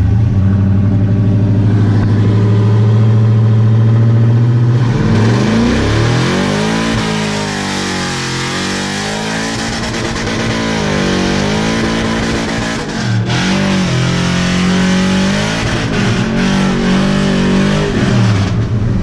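Pickup truck engine heard from inside the cab with the window open: it runs steadily, then about five seconds in it opens up under hard acceleration, its pitch climbing and dropping back several times as it pulls, with wind rushing through the open window.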